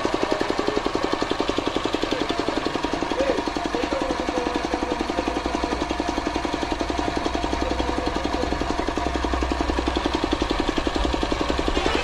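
Piston air compressor running steadily with a fast, even thumping pulse, supplying air for a paint spray gun.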